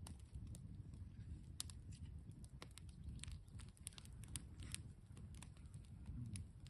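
Campfire crackling faintly: scattered small irregular pops and clicks over a low rumble.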